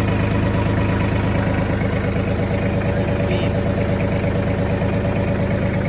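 Mahindra 2615 HST tractor's three-cylinder diesel engine idling steadily, with an even, rapid pulse.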